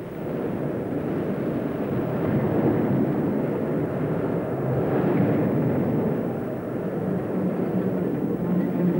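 A loud, steady rushing noise from an old film soundtrack that starts suddenly and keeps up throughout, with no clear tune or voice in it.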